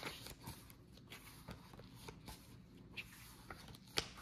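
Faint rustling of paper pages and soft clicks as a hardcover book is handled and its pages turned, with one sharper click near the end.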